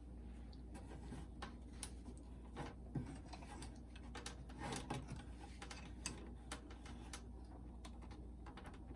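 Faint, irregular clicks and light taps of plastic parts being handled as the front casing of a Pioneer SK-550 boombox is worked loose, with a small cluster of taps about five seconds in, over a low steady hum.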